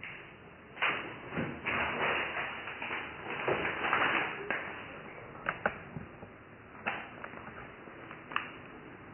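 Handling noise: a crinkly plastic bag being rustled for a few seconds, followed by several separate sharp clicks and knocks.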